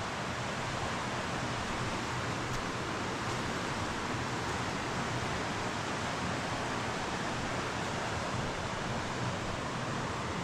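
Steady rush of flowing river water, an even hiss with no break.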